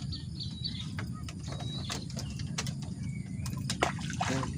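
Steady low wind rumble on the microphone, with scattered small clicks and knocks and a few short bird chirps.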